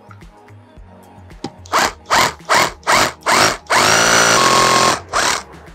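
Cordless hammer drill with a masonry bit drilling into brick. It starts a second and a half in as a string of short trigger bursts, each with the motor whining up, then runs steadily for about a second, and gives one more short burst near the end.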